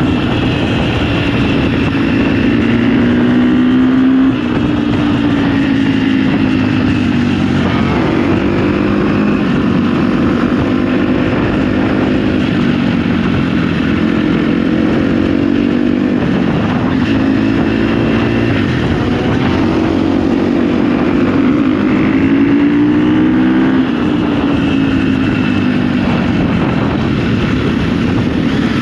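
KTM 250 SX-F four-stroke single-cylinder dirt bike engine under way, its pitch rising and falling again and again as the throttle is opened and closed and the gears change.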